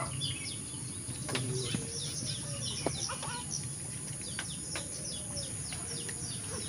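Many small birds chirping, a dense run of short falling chirps several times a second, over a steady high-pitched drone.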